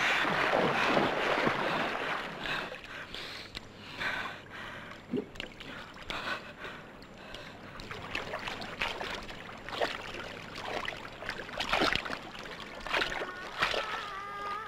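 Stream water rushing and splashing: loud at first, then settling to scattered irregular splashes and trickling. Near the end, held musical notes with a wavering pitch come in.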